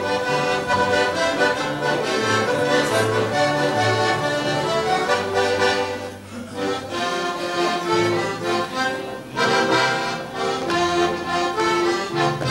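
Accordion playing a lively folk dance tune, with a guitar accompanying underneath; the music dips briefly about halfway through before carrying on.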